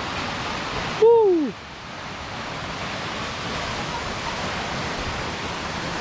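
Coban Rondo waterfall: a steady rush of falling water. About a second in, a brief loud pitched sound rises slightly and then falls steeply for about half a second, and the water noise dips briefly after it.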